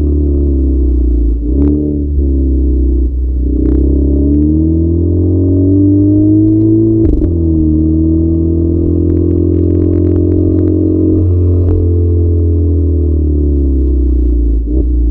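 Stock exhaust of a 2010 Seat Ibiza Cupra Bocanegra's 1.4 TSI four-cylinder running. The engine note climbs and falls with short sudden breaks about 1.5, 3 and 7 seconds in, then holds fairly steady and eases off near the end.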